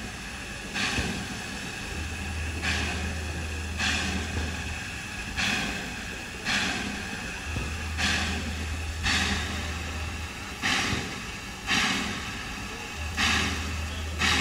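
Steam locomotive exhaust chuffing at a slow, steady pace, about one chuff every second and a bit, with a low hum coming and going underneath.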